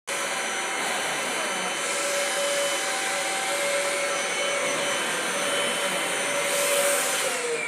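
Vacuum cleaner motor running with a steady whine and rush of air; near the end its pitch starts to fall as it slows down.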